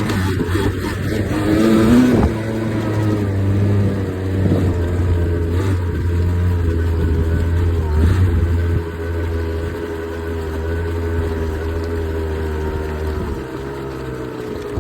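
Beta RR 50 enduro bike's small two-stroke engine running under throttle: revs rise and fall in the first couple of seconds, then hold steadier, easing off near the end.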